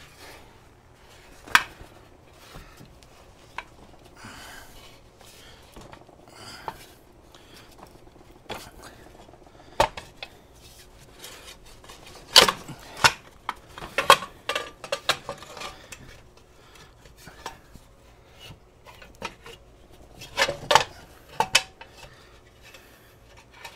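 Metal front fender of a Honda CL350 knocking and scraping against the fork legs as it is worked into place between them: irregular metallic clanks and rattles, busiest about halfway through and again near the end.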